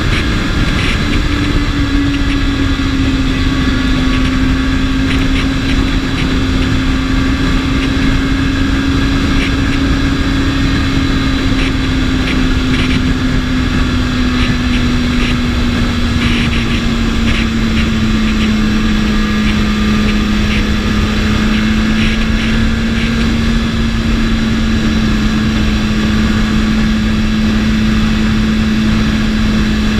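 BMW S1000RR's inline-four engine running at a steady cruise, its pitch easing down slightly after about sixteen seconds, under heavy wind rush on the microphone.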